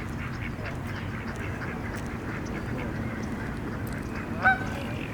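Waterfowl calling: many short, faint calls throughout, and one loud call about four and a half seconds in, over a steady low background noise.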